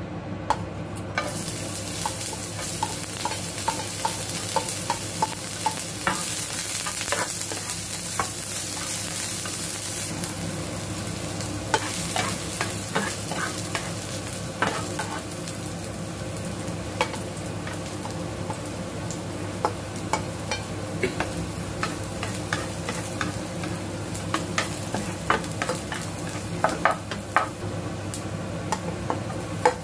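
Diced red onion and garlic frying in hot oil in a nonstick pan: steady sizzling with scattered crackles and pops.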